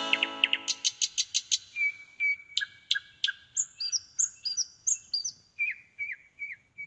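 Bird song: a quick run of sharp chirps in the first second or so, then a series of clear whistled notes, several falling in pitch. A guitar tune fades out at the start.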